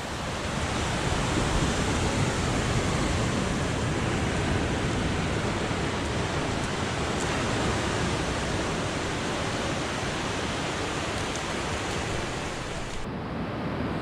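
Sea surf washing steadily onto the beach, an even rushing sound with no distinct breaks; the hiss thins out about a second before the end.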